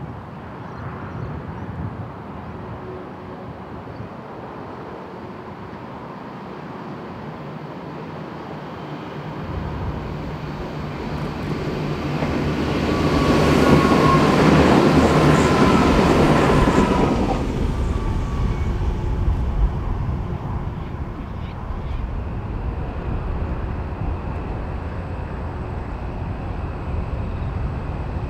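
V/Line diesel railcar train passing close by: its engine and wheels rumble up loudly over a few seconds, with a faint wheel squeal at the peak, and then fade. A low diesel rumble carries on as a locomotive-hauled passenger train approaches.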